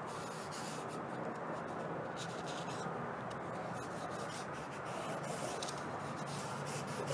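A paper lens wipe rubbing steadily across a blasted-finish steel test blank, spreading a coat of gun lubricant.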